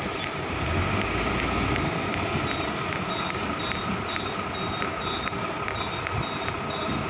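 Hino FG235TI truck's diesel engine running at low speed as the truck backs up slowly. A rapid, regular ticking runs through it, and from a couple of seconds in short high beeps repeat a few times a second.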